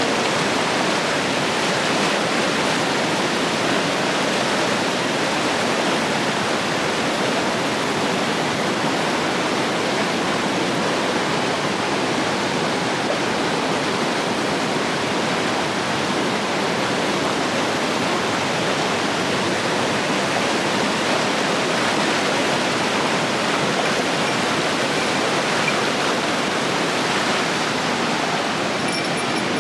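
Mountain river rushing over rocks in a gorge: a steady, unbroken roar of white water with no change in level.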